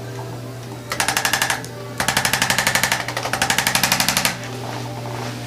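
Handheld electric percussion instrument rapping rapidly and evenly against the patient: a short burst about a second in, then a longer burst of about two seconds. A steady low hum runs underneath.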